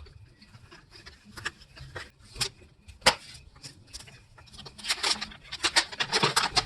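Rummaging through a car's glove box: scattered rustles and clicks of papers and small objects being handled, with a sharp click about three seconds in and busier handling near the end.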